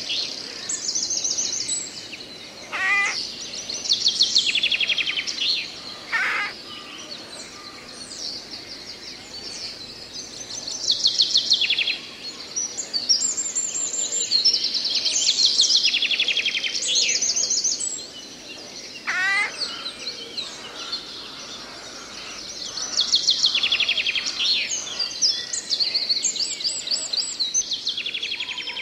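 Songbirds singing in a forest: fast trilled phrases, each about a second long, repeated every few seconds, with a few short sweeping calls among them, over a faint steady background hiss.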